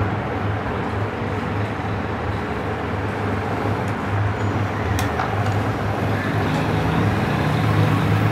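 Steady low background rumble with a pulsing hum, and a single light click about five seconds in.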